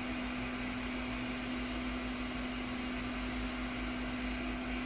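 Hot air rework station blowing at full fan, a steady airy hiss with a constant low hum.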